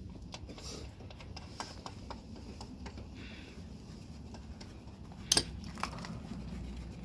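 Scattered light metallic clicks and taps as the new front strut assembly's top mount is worked into place and its fasteners started by hand, with one sharper clack about five seconds in, over a low steady hum.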